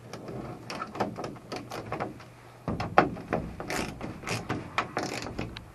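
Socket wrench tightening a 10 mm nut onto a bolt in a metal greenhouse frame: a run of uneven clicks and small metallic ticks.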